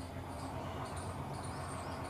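Outdoor background: a steady low hum with several faint, short high-pitched chirps from small creatures, likely insects.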